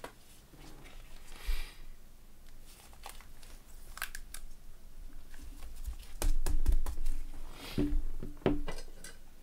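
Soft plastic crinkling and rustling as a trading card is slid into a clear plastic sleeve, with light clicks and a few low handling bumps, clustered about six to eight seconds in.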